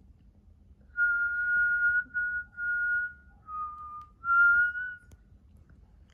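A person whistling slow held notes to lull a puppy to sleep: a long first note, a few shorter ones, a lower note, then a final note that rises slightly, stopping about five seconds in.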